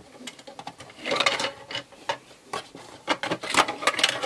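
Hard plastic toy skatepark container being opened and its ramp pieces handled: a sharp click at the start, then a run of plastic clicks, rattles and rubbing, busiest about a second in and again about three to four seconds in.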